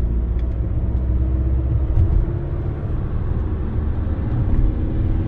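Steady low road and engine rumble inside a VW Passat cabin at speed on a country road, with no wheel-bearing drone: the newly replaced front-right wheel bearing runs quiet.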